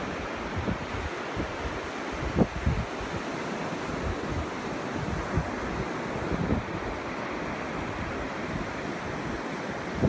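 Ocean surf breaking and washing up a sandy beach, a steady rush, with wind buffeting the microphone in irregular low thumps, the strongest about two and a half seconds in.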